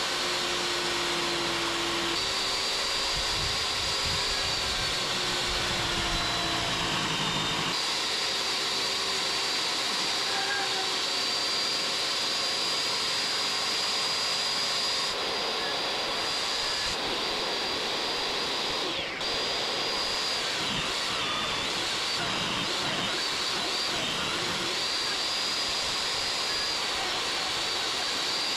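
Portable table saw and its shop vacuum dust collection running steadily while a long mahogany board is fed through to cut a groove for glass. The saw's high whine wavers in pitch a few times as the blade takes the cut.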